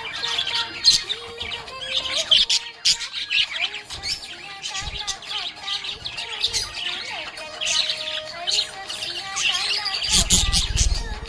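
Budgerigar chirping and warbling in quick, busy bursts over background music with a held melody. A brief low rumble near the end.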